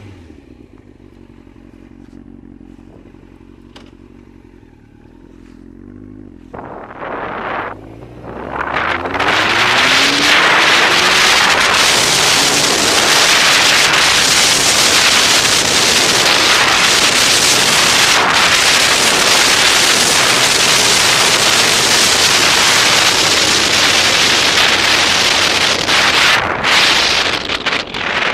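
Yamaha Fazer motorcycle engine running at low revs, then revving up with rising pitch as the bike pulls away about seven seconds in. From about nine seconds on, loud steady wind noise on the helmet-mounted camera drowns out the engine.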